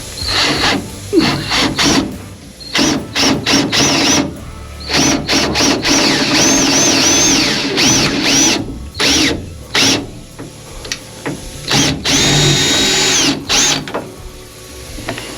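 Power drill running in many short bursts, its motor whine rising and falling in pitch each time, with two longer runs.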